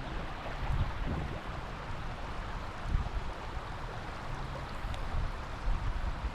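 Steady rush of river water, with irregular low thumps of wind buffeting the microphone.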